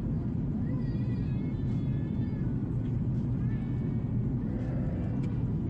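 Steady roar of an airliner's cabin in flight, heard from a window seat: the engines and airflow make an even low rumble. Faint, wavering high-pitched sounds come through it a few times.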